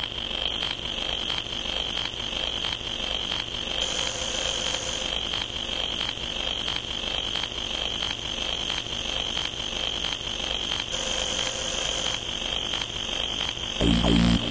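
Synthesized demo soundtrack intro: a steady high-pitched electronic tone over hiss with faint regular ticks, and two short bursts of rapid beeping about four and eleven seconds in. Near the end, loud electronic music with heavy bass starts.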